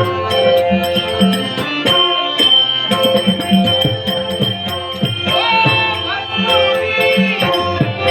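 Dashavatar devotional music: a steady, held melody, probably on harmonium, over regular drum beats and bright metallic strikes of small cymbals or jingles. About five seconds in, a wavering, gliding melodic line rises over it for a couple of seconds.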